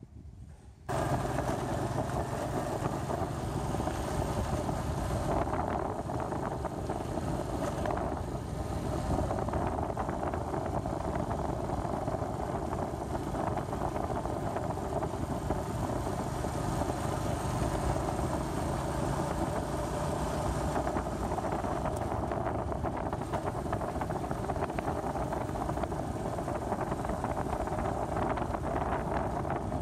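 Wind rush on the microphone with engine and road noise from a moving vehicle, starting suddenly about a second in and then running steadily.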